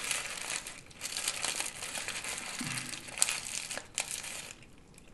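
Paper sandwich wrapper crinkling as it is unwrapped by hand, a dense run of crackles that dies away near the end.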